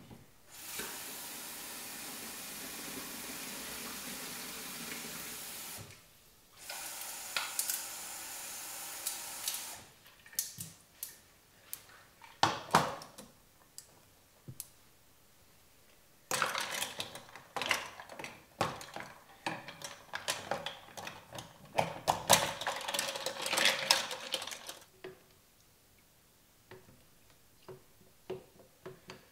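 Tap water running into a steel saucepan of ice cubes in two steady spells. Then clinks and knocks of ice, the metal pan and a spoon, and a busy spell of clattering as a cup of warm tar, oil and beeswax mixture is set into the ice water and stirred.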